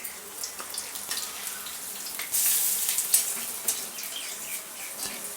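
Hot oil sizzling and crackling as bread pua fries, with a louder surge of sizzling about two and a half seconds in.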